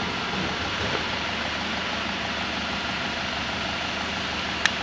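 Hitachi heat gun running: a steady whoosh of its fan blowing air, with a faint hum. A single sharp click near the end.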